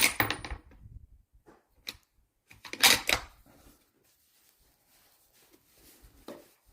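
Sharp metallic clacks from handling a bolt-action rifle: one right at the start, a faint one about two seconds in, and a quick cluster about three seconds in, typical of the bolt being worked to chamber a round.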